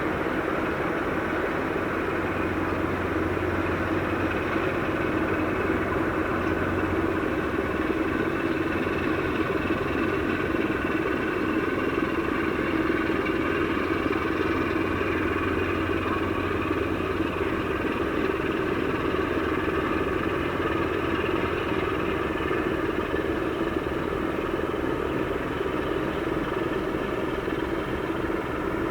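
Steady engine-like mechanical drone with several held humming tones, unchanging in level.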